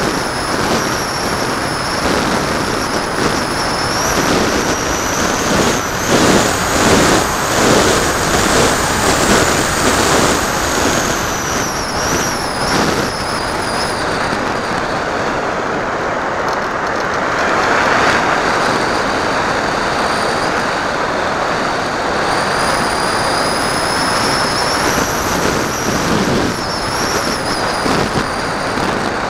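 Air rushing past the Kunai warmliner glider's airframe while it glides with its electric motor off and the folding propeller folded back. It is a steady rushing hiss that swells and eases, with a faint high whistle drifting up and down in pitch.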